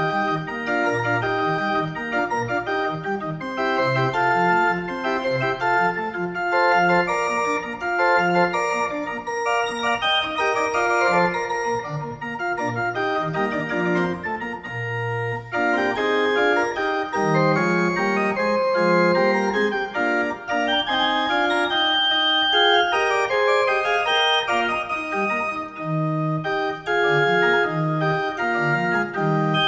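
Small wooden chamber pipe organ playing a slow piece in several parts, the notes held and changing together over a moving bass line.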